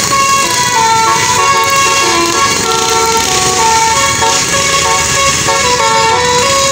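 Tour bus 'basuri' telolet horn, a multi-trumpet air horn, playing a melody of short notes that step up and down in pitch without a break.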